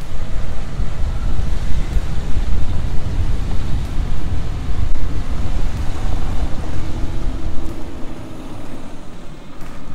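An SUV driving along a rough dirt track, heard from a camera mounted outside the vehicle: a dense low rumble of engine and tyres, with wind buffeting the microphone in irregular gusts.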